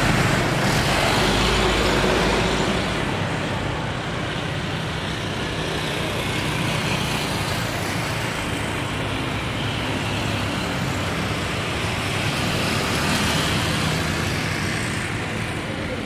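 Airbus A350-900's twin Rolls-Royce Trent XWB turbofans at takeoff thrust as the airliner runs down the runway, heard from a distance as a steady rushing jet noise. It eases slightly a couple of seconds in.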